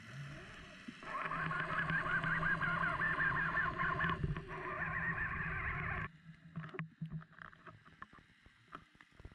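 Underwater sound picked up by a submerged camera: a steady low hum with a warbling whine over it. It breaks off suddenly about six seconds in and is followed by scattered faint clicks and knocks.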